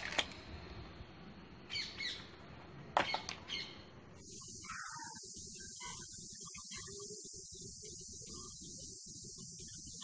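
Plastic vacuum cleaner attachments being handled, giving a few sharp clicks and knocks in the first four seconds; from about four seconds in a steady hiss takes over.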